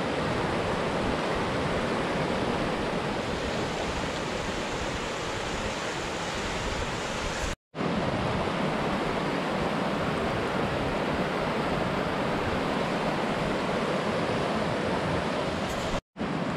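A fast-flowing creek rushing over rocks in small rapids, a steady roar of water broken twice by a brief silence.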